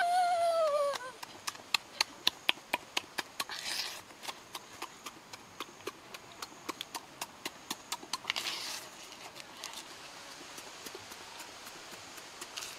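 Close-up eating sounds: sharp clicks and crunches of roasted shrimp being peeled and chewed, coming thick and fast for the first few seconds, then thinning out. A short hummed 'mmm' of enjoyment, rising then falling in pitch, opens it.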